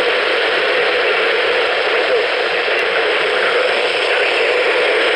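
Steady, loud radio static hiss from a radio receiver losing the signal, drowning out the warning broadcast.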